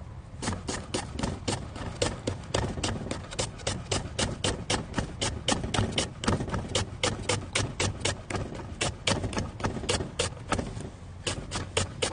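Kitchen knife slicing a green onion on a wooden cutting board, the blade knocking the board about four times a second in a steady rhythm, with a short pause near the end.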